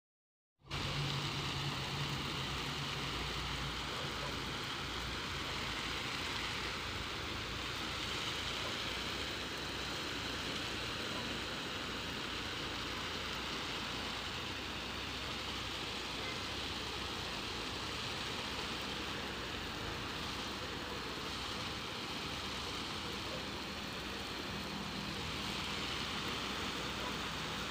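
Water spraying from a homemade plastic shower head onto rose bushes and soil: a steady hiss of fine spray, starting about half a second in, with a faint low hum underneath.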